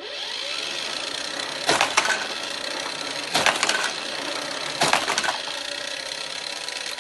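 Battery-powered booster of a Hot Wheels Scorpion track set starting up and whirring steadily, with three loud bursts of clattering about a second and a half apart as a toy monster truck is fired through its spinning wheels and rattles along the plastic track.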